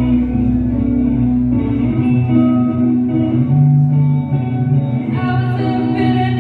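Live music: sustained, ringing guitar chords with singing.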